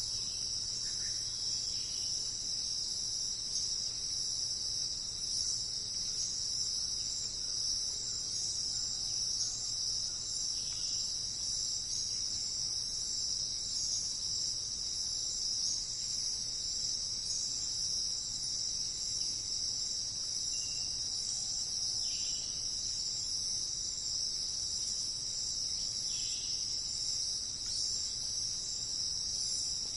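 A steady, unbroken high-pitched insect chorus, like crickets trilling, with a few faint, brief bird chirps scattered through it.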